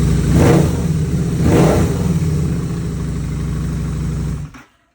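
Harley-Davidson V-Rod's V-twin engine blipped twice, then running steadily, cutting off suddenly near the end.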